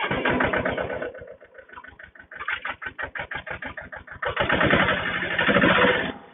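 Mahindra Jivo 245 DI tractor's two-cylinder diesel engine running with an even firing beat that slows in the middle, then revs up loudly about four seconds in and drops back sharply just before the end.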